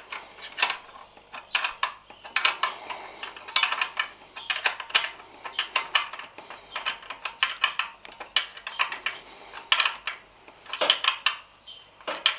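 Ratchet clicking in quick runs with short pauses, as the clamp bolts of a motorcycle sump guard's front bracket are tightened onto the frame.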